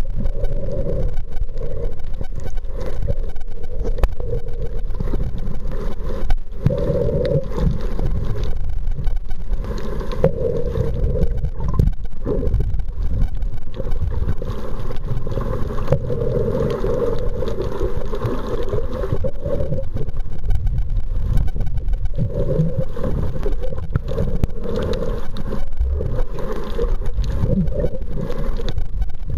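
Underwater noise picked up by a submerged camera: a steady muffled rumble with a hum that swells and fades.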